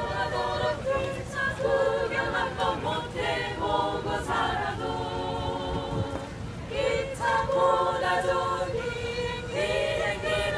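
A small choir of women singing a cappella, with long held notes and a brief pause about six seconds in.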